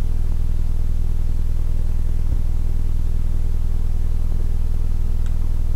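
Steady low hum made of several even low tones, constant throughout, with one faint click about five seconds in.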